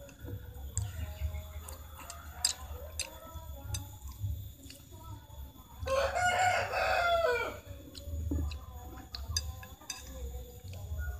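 A rooster crowing once, a single call of about a second and a half beginning about six seconds in and the loudest sound here, with fainter chicken clucking before it. Scattered light clicks of chopsticks against a plate.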